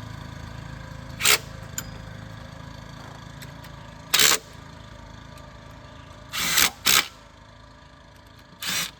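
Cordless impact driver with a half-inch drive adapter, fired in about five short bursts as it runs in the new alternator's mounting bolts, over a low steady hum.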